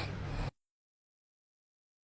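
The faint tail end of a dog's snore for about half a second, then complete silence.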